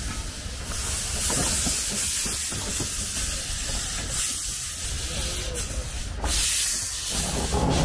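A steam engine venting steam: a loud, steady hiss over a low rumble. The hiss breaks off briefly twice and comes back stronger near the end.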